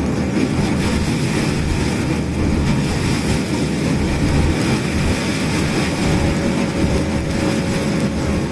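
Toyota COMS single-seat electric car driving, with steady road and running noise and the squeak (kyu-kyu-kyu) that it makes the whole time it is moving, an abnormal noise of unknown cause that the owner fears may mean the car is breaking.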